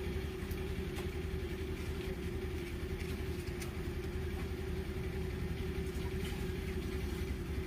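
Steady low machine hum with one constant mid-pitched tone, like a motor running, and a few faint ticks.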